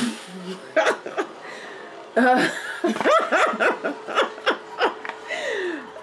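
A woman laughing in short, choppy bursts that come thickest in the middle, over a faint steady hum.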